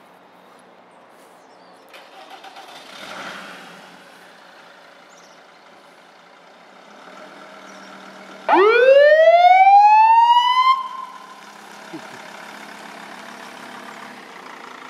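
Ambulance siren sounded once briefly: a single wail rising steeply over about two seconds, held a moment and cut off. It comes about eight and a half seconds in, over the steady running of the Mercedes-Benz Sprinter ambulance's engine.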